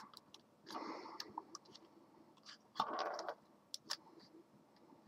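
Fingernail scraping along the seam of a Nikon Coolpix L22's plastic casing, prying its clips open: two short, faint scratchy scrapes, about a second in and about three seconds in, with a few small clicks between.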